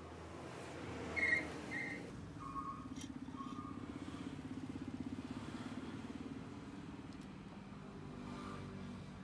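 A motorcycle engine running steadily with a low pulsing hum, and a few short beeps over the first four seconds.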